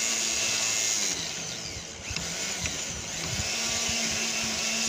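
Handheld rotary tool with a bullet-nose diamond bit grinding into wet stone, a steady whine. About a second in the grinding eases off and goes quieter for a couple of seconds, then picks back up; the tool is vibrating a lot, and the bit is backed off so as not to crack the rock.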